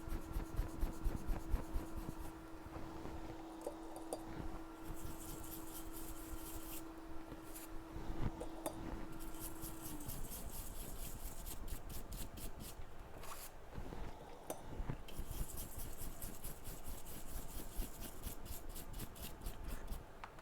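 A hand tool scraping underfill from around the CPU on an iPhone 7 logic board, in runs of rapid, fine scratching strokes. A low steady hum stops about halfway through.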